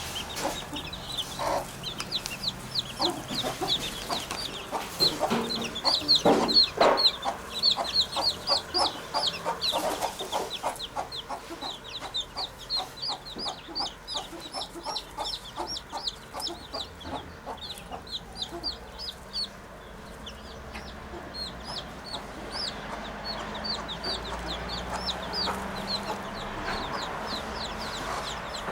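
Wood pigeons at the nest giving short, clucking calls, a few a second, loudest in the first ten seconds and then thinning out. A steady run of quick, high chirps goes on throughout.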